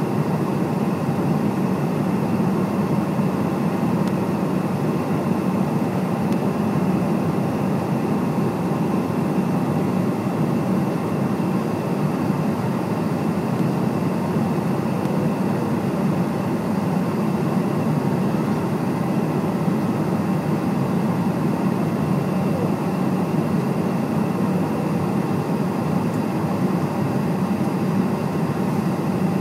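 Steady cabin noise of a Cessna Citation X business jet in flight: its two rear-mounted Rolls-Royce AE 3007 turbofans and the airflow make an even low rumble, with faint steady whine tones above it.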